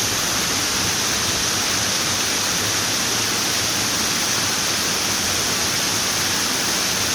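Running water: a steady, unbroken rush with a bright hiss that does not change.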